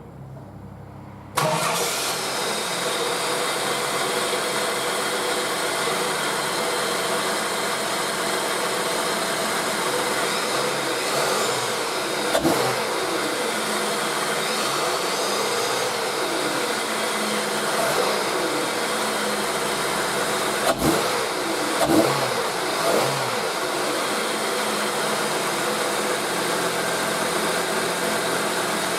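Holden Commodore VX engine breathing through a K&N high-flow air filter: it starts about a second in and settles to a steady idle, then is revved several times in the middle, each rev rising and falling back to idle, with a little more growl than the stock filter gives.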